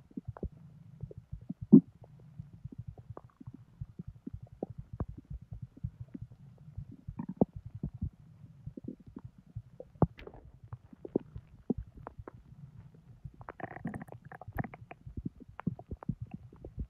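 Bowel sounds from an overfull, bloated belly digesting a large junk-food meal: many quick, irregular gurgles and pops over a low steady hum. A sharp pop comes about two seconds in, and a longer, fuller gurgle about three-quarters through.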